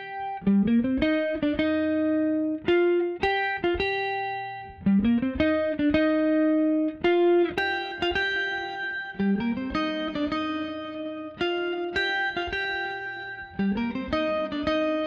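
Background music: a plucked guitar melody in short repeating phrases, with a note that slides up in pitch about every four and a half seconds.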